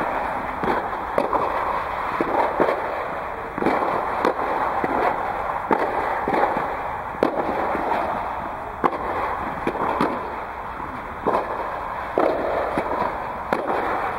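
Tennis balls being struck by rackets and bouncing on a clay court: a string of sharp pops at irregular intervals, about one or two a second, over a steady background rush.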